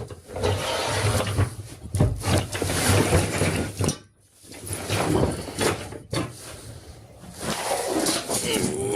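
A tool box being handled: drawers sliding and metal tools rattling, with several sharp knocks.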